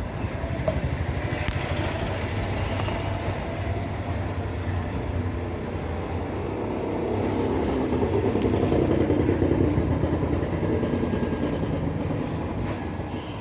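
Rumble of a passing motor vehicle, rising to its loudest past the middle and then fading, over a steady low drone.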